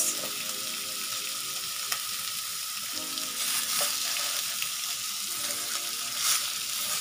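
Beef short ribs sizzling steadily as they sear in a ridged double grill pan, browning before the braise. A few soft taps as pieces are turned over by hand.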